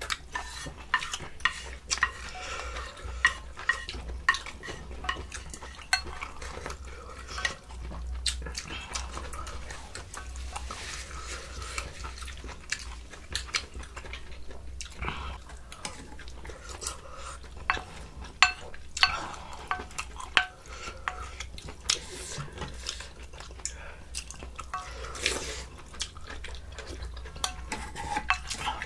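Spoons and chopsticks clinking and scraping against a ttukbaegi earthenware soup bowl and side dishes during a meal, as many irregular sharp clicks with a louder clack about 18 seconds in.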